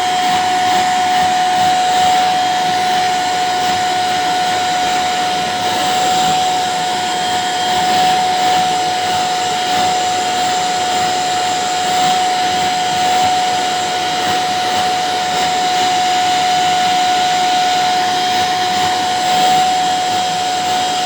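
Household vacuum cleaner running steadily: a rushing airflow with a constant high motor whine.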